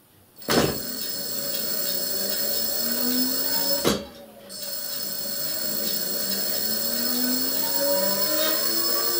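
Second-hand 500-watt electric bike hub motor spinning unloaded on the bench under pedal-assist control, set going as the sensor's magnet disc is turned by hand. It is a motor whine that slowly rises and falls in pitch. It starts with a click about half a second in, and cuts out briefly with another click about four seconds in before running again.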